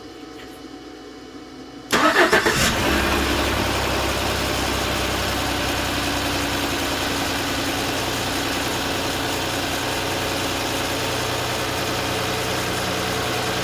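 2014 Chevrolet Silverado's 4.3 L V6 cranking briefly about two seconds in, catching within a second and settling into a steady idle. It starts now that a couple of gallons of gas are in the tank: the crank no-start was the truck running out of fuel behind a fuel gauge reading falsely.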